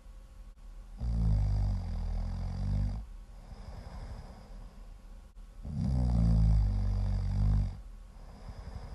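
Loud human snoring: two long, low snores about four and a half seconds apart, with quieter breathing between them.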